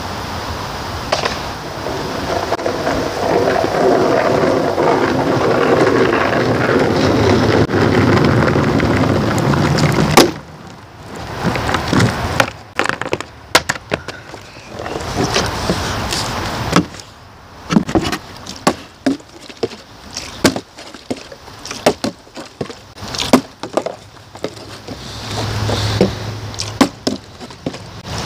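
Wind buffeting the microphone for about the first ten seconds. After it stops, a long run of sharp knocks and clacks follows, from a skateboard and a plastic water bottle being handled, set down and landing on the deck.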